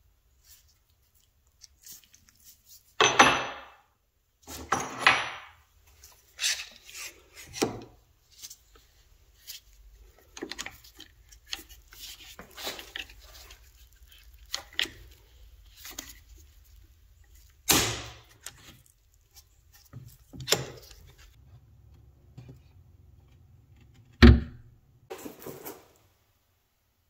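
Intermittent knocks, scrapes and clatter of parts being handled, with a sharp knock about 24 seconds in and a faint low hum through the middle stretch.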